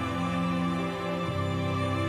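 Slow background music of sustained held chords, changing to a new chord about a second in.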